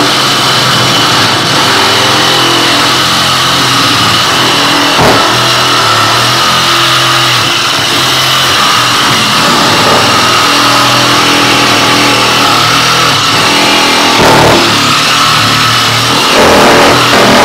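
Ryobi 18V ONE+ cordless reciprocating saw running and cutting through PEX water supply pipe, its motor speed rising and falling with the trigger. It grows louder about fourteen seconds in and again near the end as the blade bites into the pipe.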